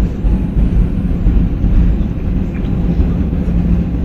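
Cabin noise of an Airbus A320 rolling out on the runway just after touchdown: a loud, steady low rumble from the wheels and engines, with a steady low hum, heard from inside the cabin.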